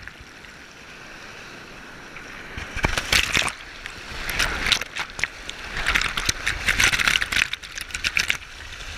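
Breaking surf rushing and splashing around a bodyboard as it is carried in on a wave, with water hitting the camera. The rush swells about three seconds in and is loudest from about four to eight seconds, full of sharp splashes, then eases.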